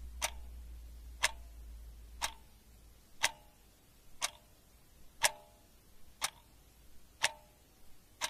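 A clock ticking steadily, one tick a second, each tick with a short ringing tone. A low hum underneath fades out about three seconds in.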